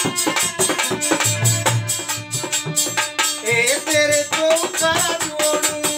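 Rasiya folk music: a dholak beats a fast, even rhythm with a chimta's jingles clashing in time, over held harmonium chords. A male voice comes in singing about three and a half seconds in.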